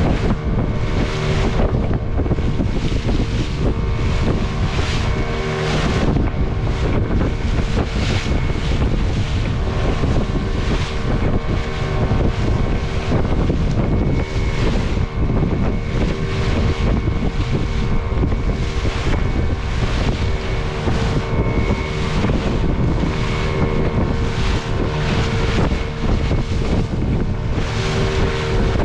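Small wooden motorboat running fast through choppy sea, its motor droning steadily while the hull slaps the waves and throws spray in surges about once a second. Wind buffets the microphone throughout.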